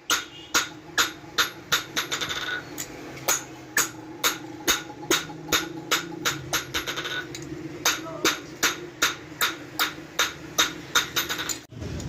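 Hand hammer striking metal on an anvil in steady blows, about two to three a second, each with a short metallic ring, as metal is hand-forged. A steady low hum runs beneath, and the hammering breaks off near the end.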